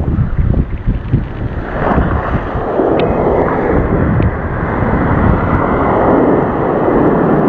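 Breaking surf churning and rushing around the angler, a loud, steady, muffled rush of water that swells about two seconds in, with wind buffeting the microphone.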